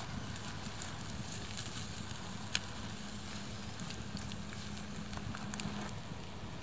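A campfire's embers crackling with frequent sharp pops, two of them louder, about a second in and about two and a half seconds in, over a steady sizzle from a raw beef steak cooking directly on the hot coals.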